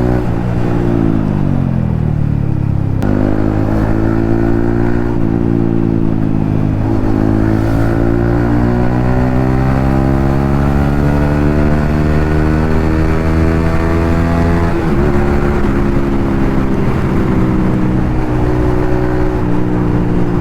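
Yamaha MT-15's single-cylinder engine through an Akrapovic exhaust under way: the revs fall off, pick up again, then climb in a long steady rise before dropping sharply at a gear change about fifteen seconds in and running on evenly.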